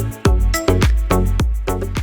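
Background music with a steady beat, drums and deep bass, the video's outro music.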